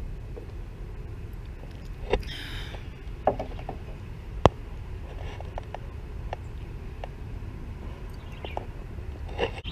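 Outdoor ambience: a steady low rumble, with a short rustle about two seconds in and a few sharp clicks and ticks, one loud click about four and a half seconds in.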